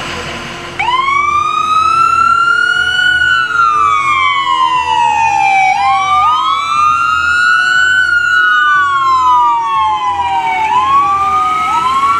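Ambulance siren switching on about a second in and sounding a slow wail that rises and falls in pitch, one cycle about every five seconds. A second wail runs slightly out of step with it, over a low vehicle rumble.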